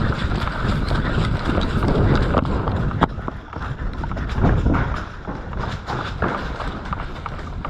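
Footsteps of an airsoft player on the move, with a steady low rumble and scattered sharp clicks, one standing out about three seconds in.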